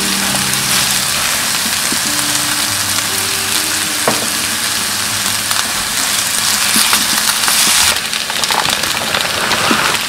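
Kimchi fried rice sizzling in a frying pan as a plastic spatula stirs and breaks up the cooked rice, a steady dense hiss that grows louder for a moment near the middle.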